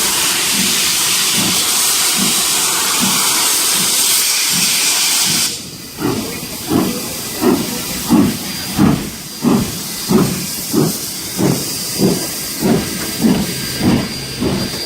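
Steam locomotive starting away: a loud, steady hiss of escaping steam stops suddenly about five seconds in. Evenly spaced exhaust chuffs follow, about one and a half a second, as it pulls out.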